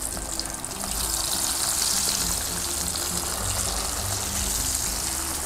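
Perkedel (potato and corned-beef fritters) sizzling in hot oil in a frying pan: a steady hiss.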